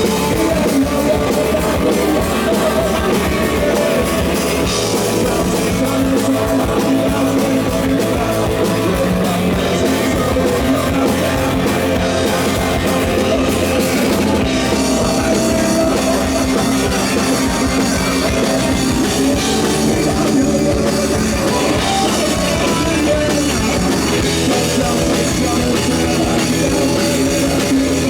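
Rock band playing, with electric guitars and a drum kit.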